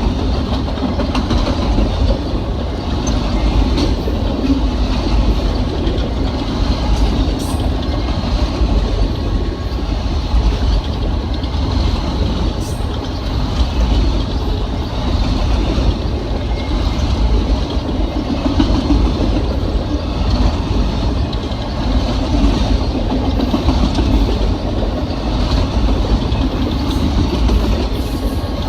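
A train's cars rolling past on the track: a steady, loud rumble and rail noise with no horn.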